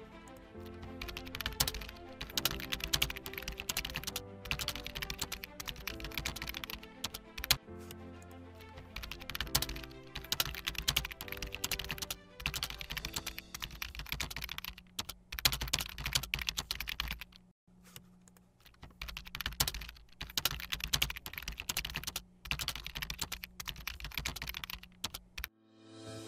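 Keyboard typing: rapid, irregular keystroke clicks in runs with short pauses, over soft background music of sustained tones. Everything drops out briefly a little past the middle.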